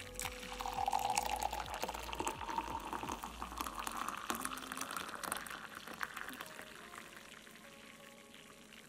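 Coffee poured in a stream into a ceramic mug, the splashing rising in pitch as the mug fills, then fading out as the pour ends.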